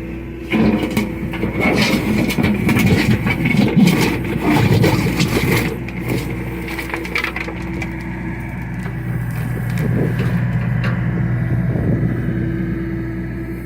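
John Deere excavator's diesel engine running under load, with a dense run of cracking and crunching as the bucket works material from about half a second to six seconds in. After that the engine and hydraulics run on steadily.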